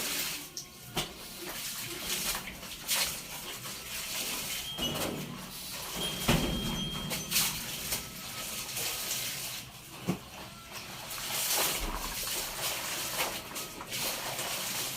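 Laundry being washed by hand in a tub of water: irregular splashing and sloshing as the clothes are scrubbed and rinsed.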